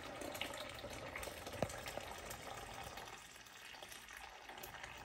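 Brewed coffee poured in a steady stream from a thermal carafe into a Vitamix blender jar, a faint trickling pour with one small click about a second and a half in.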